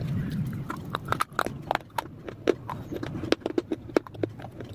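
Close-up crunching of mixed dry clay pieces being bitten and chewed: sharp, irregular crisp cracks, several a second.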